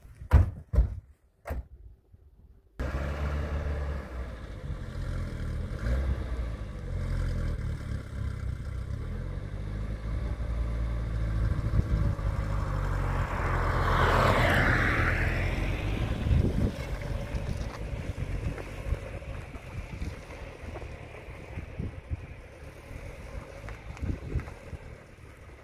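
A few car-door knocks, then a Peugeot 405's engine running with a low rumble that comes in suddenly, with a louder rushing stretch about halfway through as the car moves onto the road.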